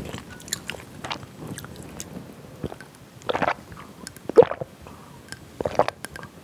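A person gulping a drink from a glass mug, with about three loud swallows in the second half, after a few faint mouth clicks.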